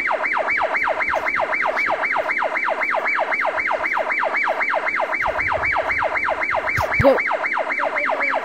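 Electronic siren wailing in fast falling sweeps, about four a second, with a short rising sound about seven seconds in. It stops near the end.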